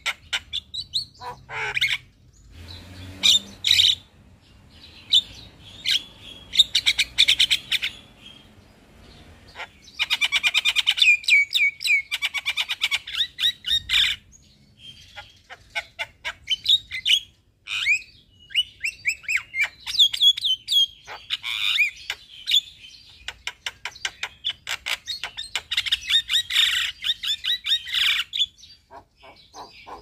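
Javan myna (jalak kebo) singing a long, varied song of rapid chattering trills and whistled notes. It sings in bursts of a few seconds with brief pauses between them.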